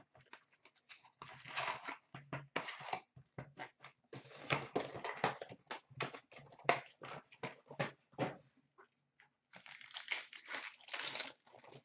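Paper and card handling: a cardboard trading-card box being torn open and its card packs crinkling and tearing as they are pulled out and opened, in irregular bursts of crackling with short clicks.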